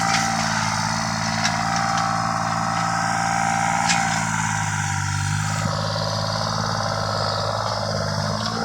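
Excavator's diesel engine running steadily, with a few short clicks over it.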